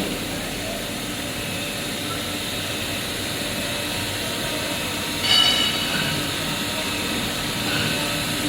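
Endless diamond wire loop saw running steadily, its wire cutting through a silicon rod under flowing water. A brief high-pitched sound comes about five seconds in.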